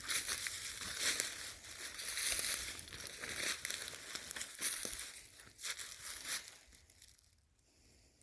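Footsteps crunching through dry fallen leaves on the forest floor, an uneven crinkling tread that stops near the end.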